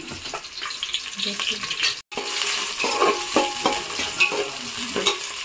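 Onions and green chillies frying in hot oil in a pot, sizzling while a spoon scrapes and stirs them in repeated short strokes. The sizzle cuts out for a moment about two seconds in and comes back louder.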